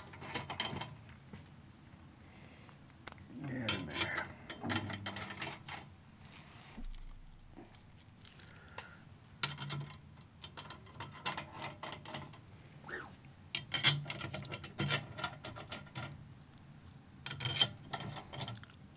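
Snare drum tension hardware being worked by hand while a new head is fitted: runs of rapid metallic clicking and ratcheting, with scattered clinks of metal parts.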